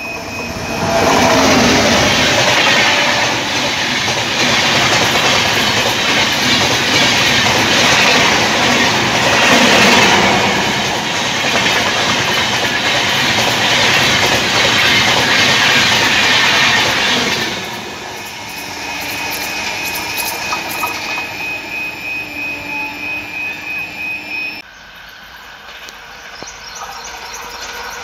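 Coaches of a Humsafar Express train passing close by at speed: a loud, steady rush of wheels on rail lasting about sixteen seconds. Then the train recedes, with the wheels clicking over the rail joints about three times a second, until the sound cuts off suddenly near the end.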